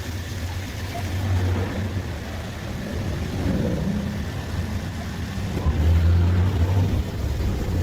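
A motor or engine running with a low, uneven rumble, growing louder around six seconds in.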